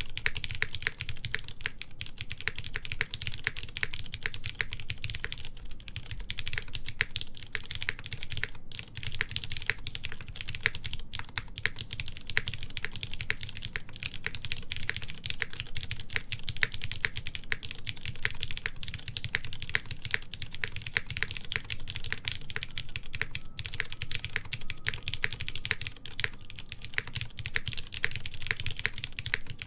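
Steady typing on a Smith and Rune Iron165 R2 mechanical keyboard with lightly lubed Cherry MX Black linear switches, a forged carbon fiber plate and GMK keycaps. It is a dense, continuous run of keystroke clacks, broken by a brief pause twice.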